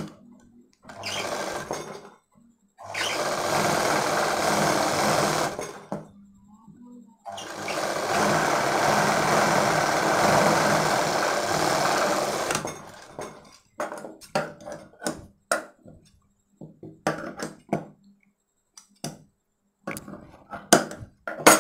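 Sewing machine stitching a seam in three runs, the longest about five seconds. It is followed by a string of short, sharp clicks, with scissors snipping thread near the end.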